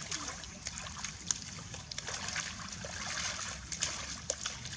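Water splashing and trickling, with many small irregular splashes and drips.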